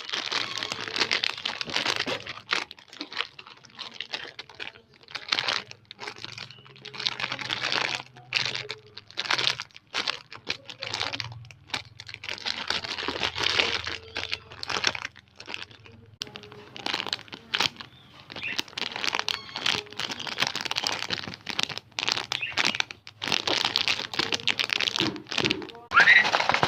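Squishy toy being squeezed and handled, giving crinkling, crackling noise in repeated squeezes of a second or two each.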